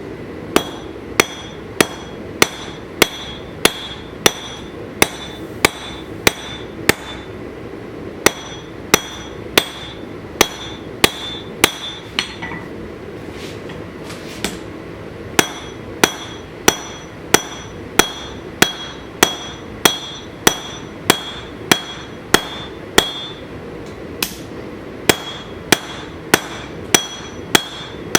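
Hand hammer forging a steel knife blank on an anvil: regular blows about one and a half a second, each with a high metallic ring, in runs broken by a few short pauses. A steady background noise runs under the blows.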